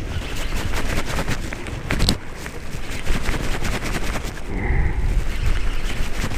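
Fishing reel clicking rapidly and unevenly close to the microphone as line is wound in, with one sharper click about two seconds in.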